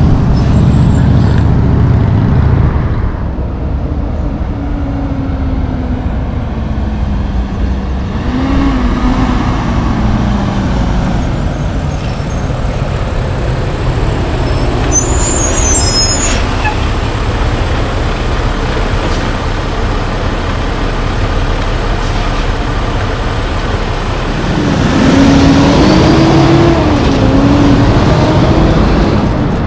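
Heavy diesel semi-trucks hauling loads of lumber driving past in traffic, their engines pulling and shifting, with the pitch rising and falling. The loudest stretches come at the start and near the end, as a truck passes close. There is a brief high squeal about halfway through.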